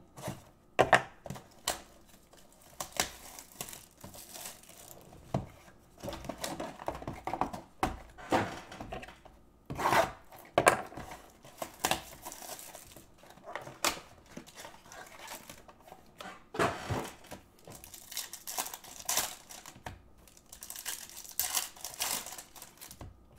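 Foil wrappers of 2019 Bowman Chrome trading card packs being torn open and crinkled by hand, in irregular bursts of tearing and rustling.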